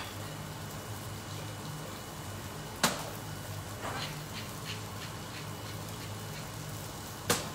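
Kitchen work sounds: two sharp clanks of cookware, the first about three seconds in and the second near the end, with a few faint clicks between them over a steady low hum.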